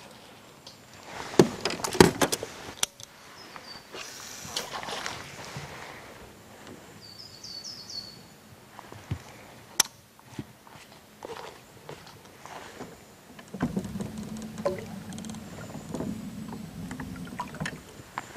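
Clicks of fishing tackle being handled in a small boat as the rear hook is taken off a topwater plug, then a swish as the lure is cast. A bird gives a short run of high chirps midway, a single sharp click follows, and a low steady hum comes in for a few seconds near the end.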